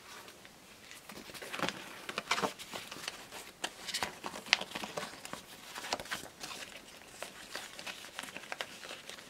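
Faint crinkling and rustling of a sheet of planner stickers and a clear plastic sleeve being handled, with many small scattered crackles.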